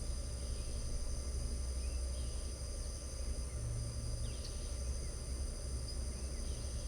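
Crickets trilling steadily in several high, even tones, with a few short bird chirps scattered through. A steady low rumble runs underneath.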